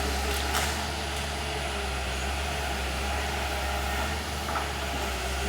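Engine of heavy earth-moving machinery running steadily.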